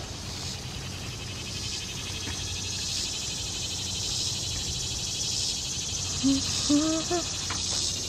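Steady, rapidly pulsing insect chorus, crickets or similar summer insects, high-pitched and continuous. A few short low notes come in near the end.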